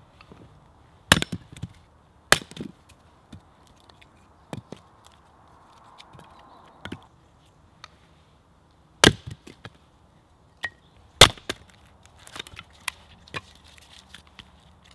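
Hatchet chopping and splitting small logs on a wooden chopping block: four sharp chops, two about a second apart in the first few seconds and two more about two seconds apart after the middle, with lighter knocks and clatter of split pieces of wood between them.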